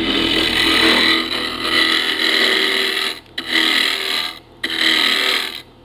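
A turning tool cutting a spinning ash blank on a wood lathe: a steady shearing hiss of shavings coming off over the lathe's running hum. The cut stops briefly about three seconds in, again about a second later, and near the end as the tool is lifted off the wood between passes.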